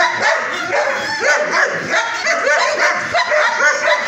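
Several kennel dogs barking and yipping over one another in a continuous, overlapping chorus.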